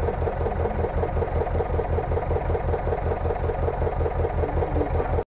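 Fishing boat's inboard engine running steadily with an even, rapid chugging pulse. It breaks off abruptly near the end.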